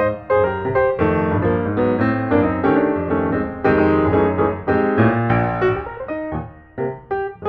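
Background piano music, one note quickly following another, with a brief lull about six seconds in.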